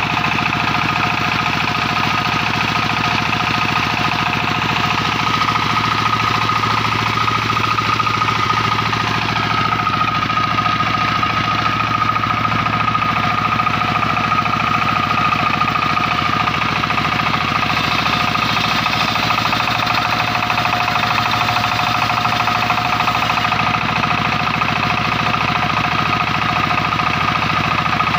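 Sawmill circular-saw machine running steadily: a constant engine-like drone with a steady high-pitched whine on top.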